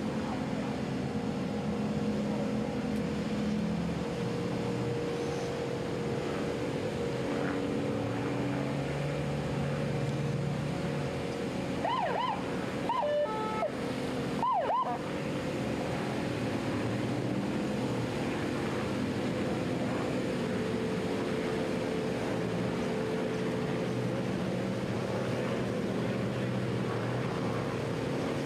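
Boat engines running steadily under wind and water noise. About halfway through come a few short, high, rising-and-falling whoops.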